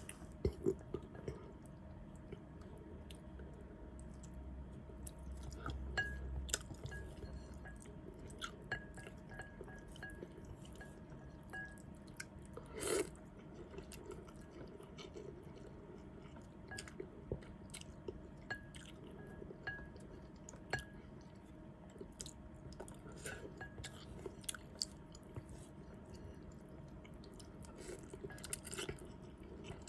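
A person chewing noodle soup close to the microphone: scattered wet mouth clicks and smacks, with one louder burst about thirteen seconds in.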